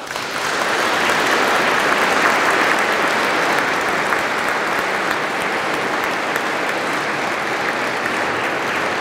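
A crowd applauding, with dense clapping that swells within the first half second, peaks about two seconds in, then eases slightly and keeps going.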